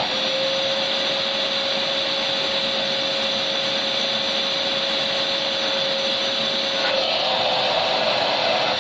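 Vacuum cleaner running steadily: a constant rush of air with a steady motor whine. The whine drops out about seven seconds in while the rush carries on.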